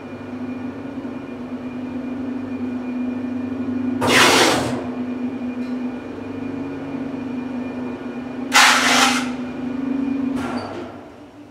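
Ride in a 1972–73 KONE two-speed traction freight elevator going up: a steady motor hum, with two loud rushing noises about four seconds apart as the car passes landings. Near the end a shorter noise comes as the car slows to level at the floor, and the hum stops.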